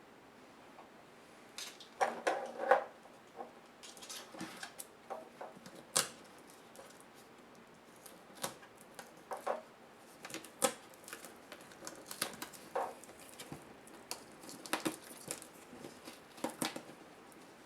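Laptop parts being handled and taken apart by hand: irregular clicks, taps and short rattles of small plastic and metal pieces, with a louder cluster of knocks about two seconds in.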